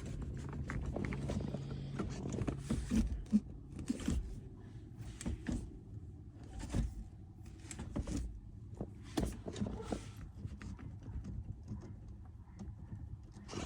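Manual gear shifter of a 2004 Audi A4 B6 being moved through its gates, giving a series of irregular clicks and clunks over a low steady hum.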